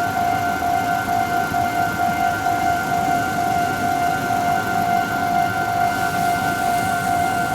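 Japanese railway level-crossing warning alarm ringing: a single high electronic tone pulsing in a fast, even beat, signalling that the crossing is closed for an approaching train.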